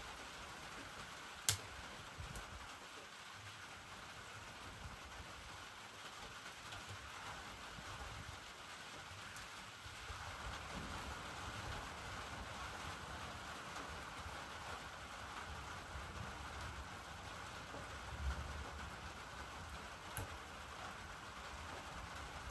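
Steady rain falling, with one sharp click about a second and a half in.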